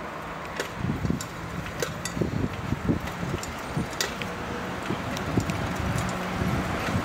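Wind buffeting the microphone of a handheld camera, with scattered knocks and clicks from handling and a faint low hum of street traffic.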